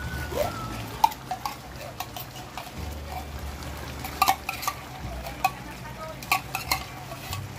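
Metal spoon scraping thick condensed cream of mushroom soup out of a tin can, with a series of sharp metallic clinks of spoon against can.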